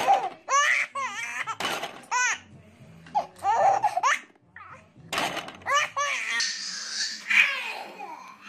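A baby laughing hard in repeated short peals, each rising and falling in pitch. Near the end it turns into a breathier, noisier stretch.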